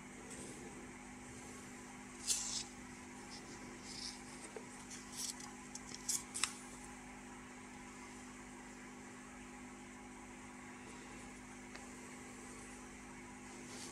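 Paper rustling in a handful of short bursts in the first half, as the pages of an old paper instruction booklet are handled, over a steady low electrical hum.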